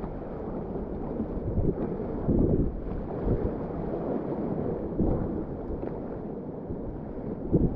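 Rushing whitewater of a river rapid: a steady low rush of water, with a few louder surges about two seconds in, at five seconds and near the end.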